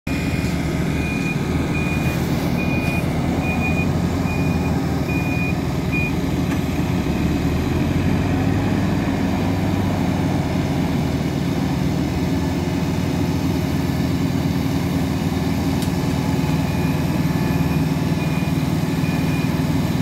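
Hidromek backhoe loader's diesel engine running steadily under load as the front bucket is worked. Its reversing alarm beeps evenly through the first six seconds and again faintly near the end.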